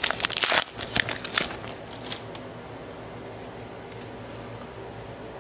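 Plastic wrapper of an Upper Deck hockey card pack being torn open and crinkled, a quick run of sharp crackles over the first two seconds. After that only a faint steady room hum remains.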